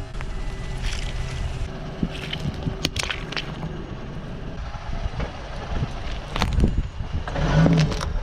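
A car creeping slowly on asphalt with its engine running and tyres rumbling, with scattered sharp cracks and crunches as the tyre presses down on objects, loudest near the end.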